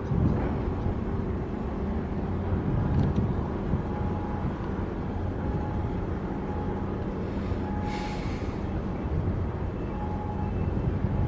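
Steady low rumble of a large container ship under way close by as it enters harbour. A brief hiss about seven to eight seconds in.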